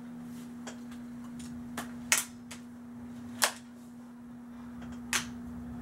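Sharp metallic clicks from a Winchester 1894 lever-action BB rifle as its lever and hammer are worked, clicking into half cock and full cock: about six clicks, the loudest a little after two seconds and about three and a half seconds in. A steady low hum runs underneath.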